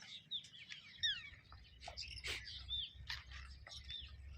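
Small birds chirping: many short, quick, falling chirps in overlapping calls, with a few sharp clicks and a low rumble underneath from about a second in.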